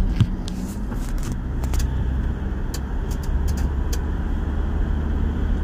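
Car cabin noise while driving at speed: a steady low rumble of engine and tyres, with scattered small clicks and rattles.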